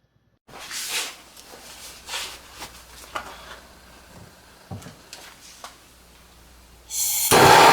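Light handling knocks and rustles from workshop work, then a loud, steady rushing noise starts near the end and carries on.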